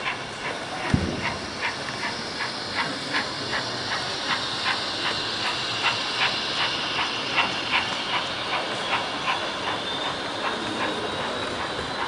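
0 gauge model steam train running past: a steady hiss with a regular beat of about three a second. A single thump comes about a second in.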